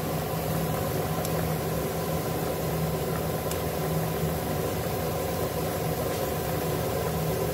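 A steady machine hum: a low, even drone with several fixed tones and no change in speed, and a couple of faint clicks.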